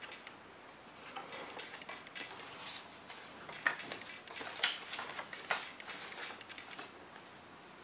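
Fold-out paper instruction leaflet being folded up by hand: light rustling of paper, broken by a few sharp clicks and taps against the cardboard box.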